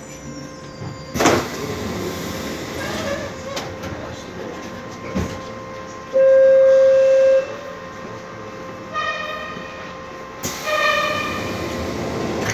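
Inside an Ansaldo Breda light-rail car: a sharp pneumatic hiss about a second in, then a loud single steady beep lasting about a second, and later two short buzzing signal tones, over the car's steady running rumble. These are the train's air-operated door and warning signals.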